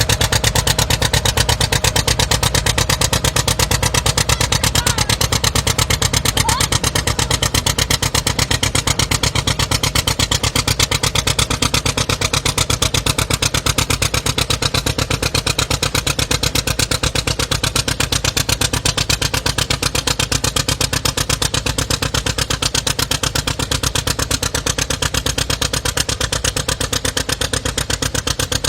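Modified pulling tractor's engine running loud and steady with a fast, even firing beat, easing off slightly near the end.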